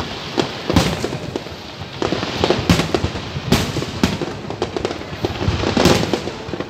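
Aerial fireworks display: shells bursting with a strong bang every second or two over a continuous crackle of smaller bursts.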